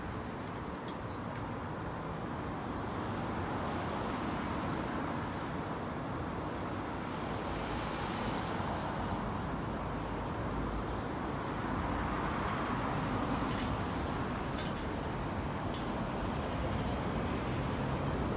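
Steady city road traffic: cars passing by, the noise swelling about eight seconds in and again a few seconds later.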